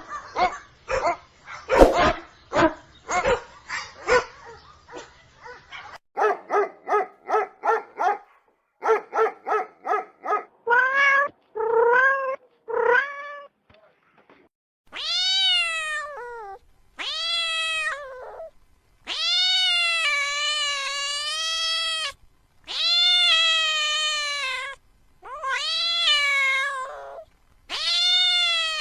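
An animal calling: quick sharp cries, then rapid short pitched calls, then about six long drawn-out meow-like calls, each rising and falling in pitch, with short gaps between them.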